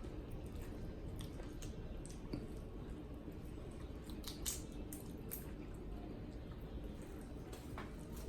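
Close-up eating sounds from a seafood boil: scattered short wet squishes and small clicks of food being handled and chewed, one a little louder about four and a half seconds in.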